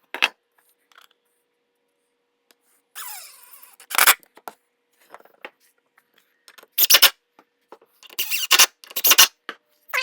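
Drill driving screws into wood to assemble a table-saw sled: a series of short, loud bursts with clicks and knocks between them.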